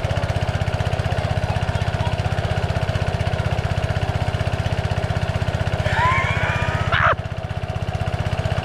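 Small engine of a water pump running steadily with a fast, even beat. About six seconds in come a few high wavering sounds and a sharp knock, after which the engine sounds briefly quieter.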